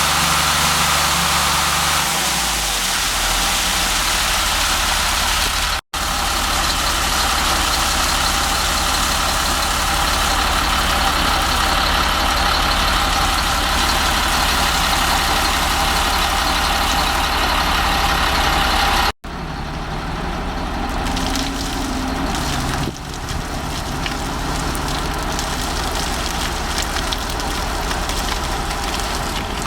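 Caterpillar C7 six-cylinder turbo diesel of a Ford F750 water truck running, in three cut-together takes. In the last third the engine note rises and falls.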